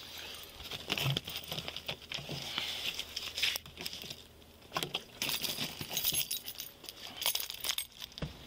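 Small objects being handled inside a car's front cabin: irregular clinks, clicks and rustling, with a few sharper knocks.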